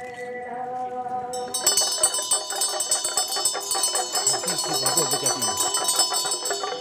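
Temple ritual music for a masked cham dance: a held pitched tone, then about a second and a half in a dense, rapid ringing of bells and clashing metal percussion sets in.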